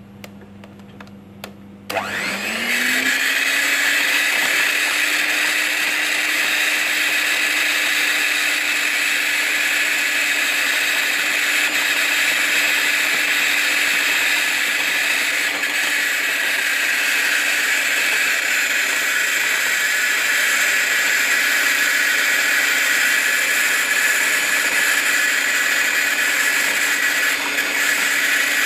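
Morphy Richards 300 electric hand mixer switched on about two seconds in after a few light clicks, spinning up quickly and then running steadily at its lowest speed, its beaters whipping chilled cream in a glass bowl.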